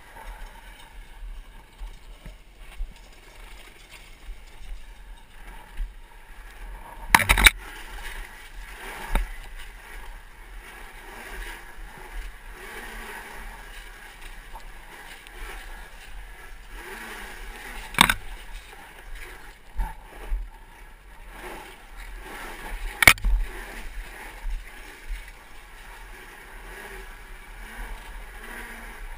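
2012 Zero MX electric dirt bike riding over a rough, rocky dirt trail: a steady rolling rattle of tyres, chain and chassis, with several sharp knocks as it hits bumps and rocks, the loudest about a quarter of the way in, just past halfway and about three quarters in.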